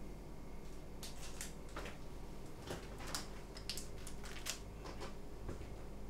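A run of short, scratchy rustles, about a dozen of them between one and five seconds in, over a low steady room hum.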